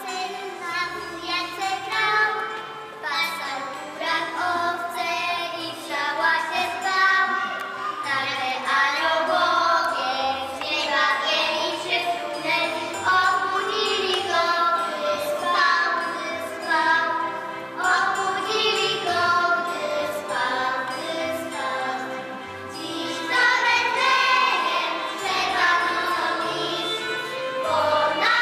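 A group of children singing a song together over instrumental backing with a stepping bass line.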